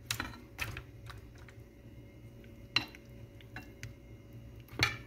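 Irregular light clicks and taps of a utensil against a glass bowl and a metal pan as marinated chicken pieces are moved from the bowl into the pan, with one louder knock near the end.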